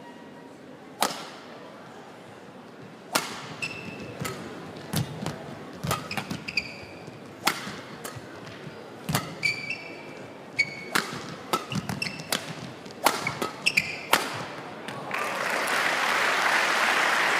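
Badminton rally: a dozen or so sharp racket strikes on the shuttlecock, with short shoe squeaks on the court between them. Just after the last hit the crowd in the hall starts applauding the point.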